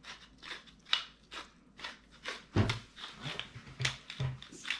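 Tall wooden pepper mill being twisted by hand, grinding peppercorns in a run of crisp crunching clicks, about two a second.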